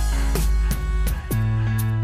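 Background music with a deep, sustained bass line and regular drum hits.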